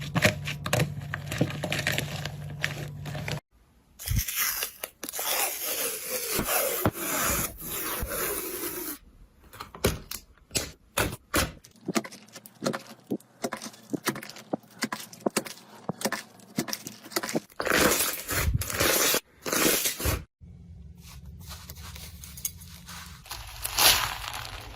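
Slime being squeezed, stretched and poked by hand: sticky crackling, scraping and sharp clicks, in several short segments that cut off abruptly.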